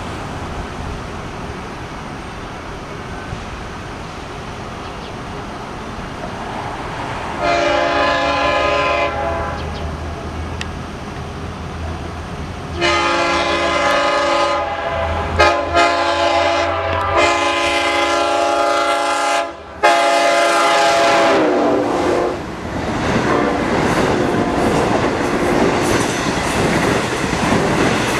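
Long Island Rail Road diesel locomotive blowing its horn as it approaches: one blast about seven seconds in, then a longer series of blasts with short breaks, the pitch falling as the locomotive passes. After it come the bi-level coaches rushing by with wheels clicking over the rail joints.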